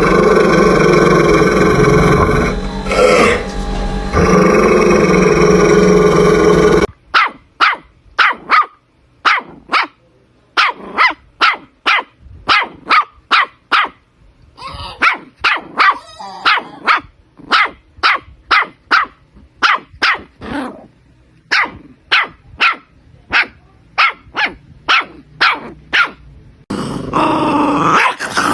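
Dog growling continuously for about seven seconds, then a long run of short, sharp barks, roughly two a second with brief pauses between bouts, before a continuous wavering growl starts again near the end.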